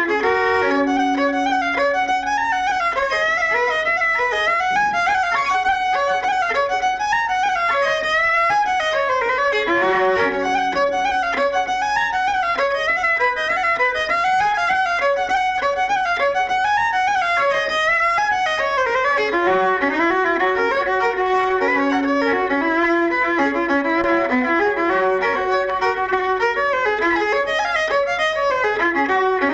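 Irish traditional fiddle music: a fiddle playing a quick tune of running notes, with lower held notes beneath.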